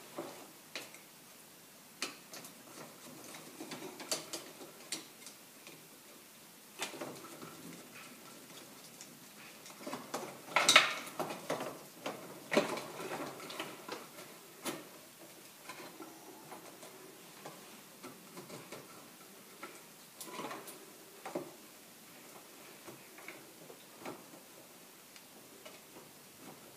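Irregular small clicks and metallic clinks of hand tools working on old electrical wiring as wire connectors are taken off, with a louder cluster of knocks a little under halfway through.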